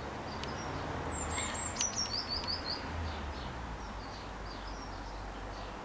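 A songbird singing a short run of high chirps that step down in pitch, about a second in, over faint steady outdoor background noise.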